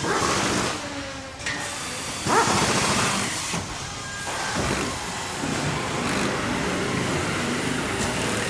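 Factory ambience: machinery running with irregular hissing bursts and shifting mechanical noise, the loudest burst about two and a half seconds in.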